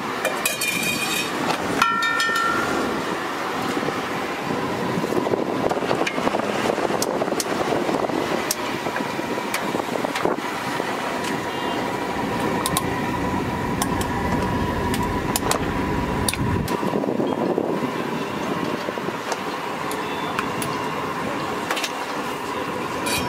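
Steady background noise of traffic and a busy roadside food stall, with sharp metal clinks scattered through it from a spatula and spoons striking a flat iron griddle and steel spice tins.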